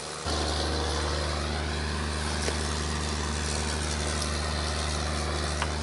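Steady low hum with a rush of air over it, heard inside a pickup truck's cab with the engine running; it cuts in suddenly just after the start.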